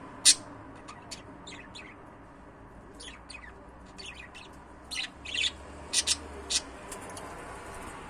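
Budgerigar chirping in short, sharp, high notes: a loud chirp just after the start, scattered softer chirps, then a run of louder chirps in the second half.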